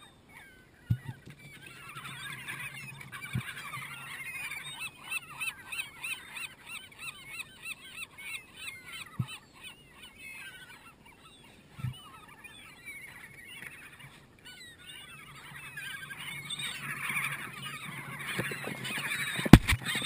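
A flock of gulls calling over fish scraps, many squeals and cries overlapping, with a run of quick repeated calls around the middle. A few dull thumps come in between, the loudest a pair near the end.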